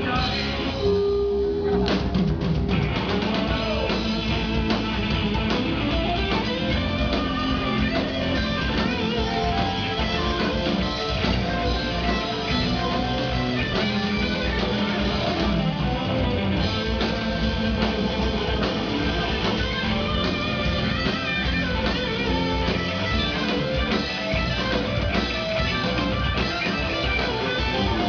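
Live rock band playing loudly, electric guitars over bass and drums.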